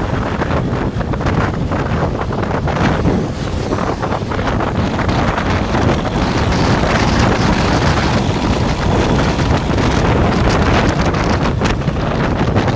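Loud wind buffeting on the microphone over a steady rumble of road traffic, with no horn tune standing out.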